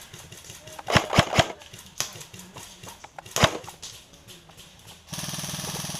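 Airsoft guns firing: three quick sharp snaps about a second in and another about two seconds later, then a steady rapid buzz near the end like an electric airsoft rifle on full auto.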